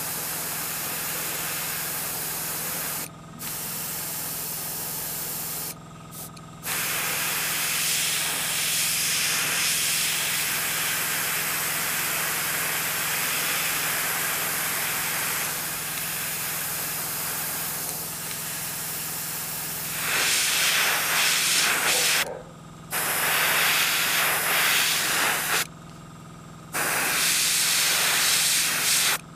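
Airbrush spraying paint onto a lure in a steady hiss, cut off briefly four times as the trigger is let go and started again, and louder in the last third. A steady low hum runs underneath.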